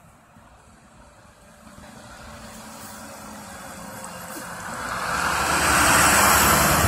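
Republic Services refuse truck approaching and driving past, its engine and tyre noise growing steadily louder to a peak as it passes about six seconds in, then starting to fade.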